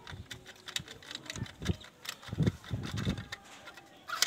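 Plastic clicks and handling noise as the cover part of a small changeover switch is squeezed and pressed into place by hand. There are many short, sharp clicks, a few duller thuds around the middle, and a louder click near the end.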